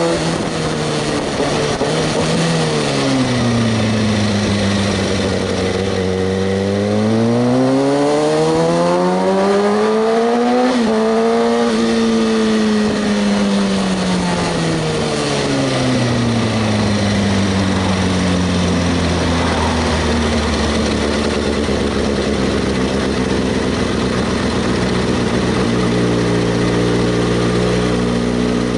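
Kawasaki ZX-6R 636's inline-four engine under way. The note drops, climbs steadily for several seconds, falls away again, and settles to a steady note for the last ten seconds, over a steady rushing noise.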